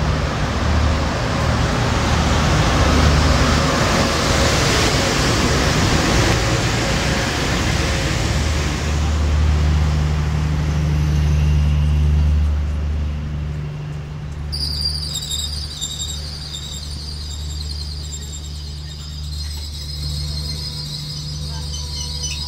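EP20 electric locomotive running slowly past with a steady deep hum and wheel-on-rail noise, followed by the Strizh coaches rolling by as the train slows into the station. About two-thirds of the way through, a high-pitched squeal sets in and holds.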